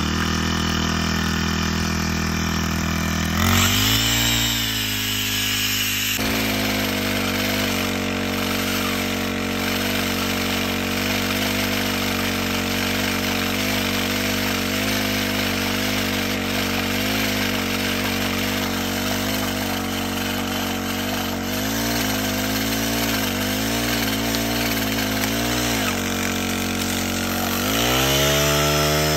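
Backpack brush cutter's small petrol engine driving a pole chainsaw attachment, revving up about three seconds in and held at high speed while the chain cuts into overhead tree branches, the engine note wavering under load. Near the end it revs up once more and drops back.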